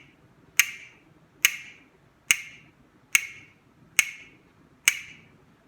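Clock-ticking sound effect: sharp single ticks, evenly spaced a little over one a second, six in all.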